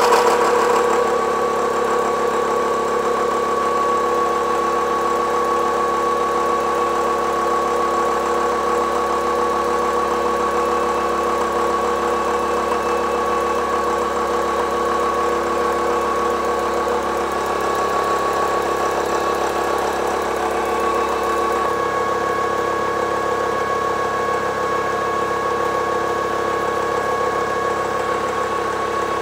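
Face mill on a planer mill taking a heavy pass along an annealed 4140 steel rail: steady machine and cutting noise with a held high tone over it. The cut runs smoothly without chatter, which the machinist puts down to re-arranged clamps changing the setup's harmonics.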